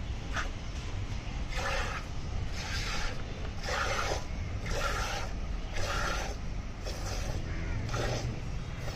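Hand milking a buffalo: jets of milk squirting into a steel mug of frothy milk, a short rasping hiss about once a second with each pull on the teat.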